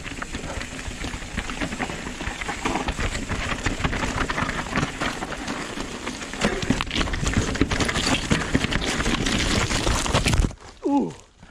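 Downhill mountain bike riding over rocks and loose shale: a steady rumble of tyres and a rattling bike with many small knocks. About ten and a half seconds in it stops abruptly as the rider crashes into a tree, and a short cry falling in pitch follows.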